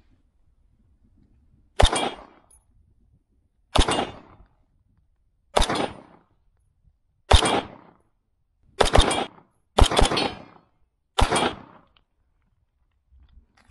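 Seven single gunshots from a firearm at a range, fired one at a time roughly every one and a half to two seconds, a little quicker near the end, each with a short echo.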